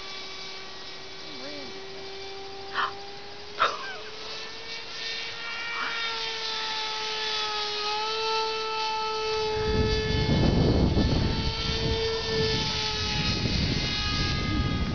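Model airplane engine running in flight, a steady high whine that rises a little in pitch and grows louder about eight seconds in, then fades. Two short sharp sounds come about three and four seconds in, and from about ten seconds in wind gusts buffet the microphone.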